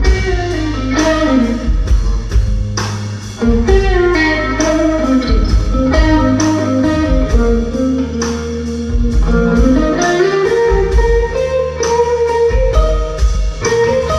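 Live blues trio playing an instrumental passage: an electric guitar plays a lead line with notes bent up and down, over electric bass and a drum kit.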